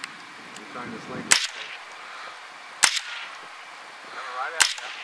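Three .22 LR rifle shots, each a sharp crack, about a second and a half apart.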